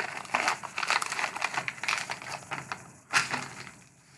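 Wrapper of a 2014-15 Upper Deck Series 2 hockey card fat pack crinkling and crackling as it is torn open by hand, with a sharper, louder crackle about three seconds in before it dies away.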